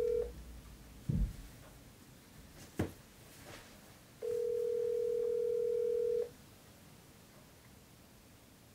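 Phone ringback tone heard through a smartphone's speaker while a call rings out unanswered. It is a steady hum-like tone in two-second rings with about four seconds of silence between them: one ring ends right at the start and another sounds about four seconds in. A soft thump about a second in and a sharp click near three seconds come in the gap.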